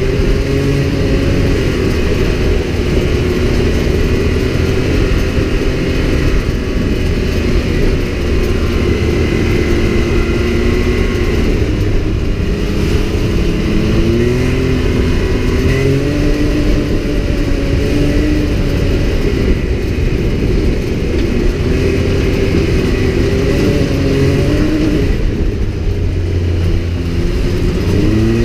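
UTV engine running under way, its pitch climbing several times as the revs rise and holding steady in between, over a constant heavy rumble.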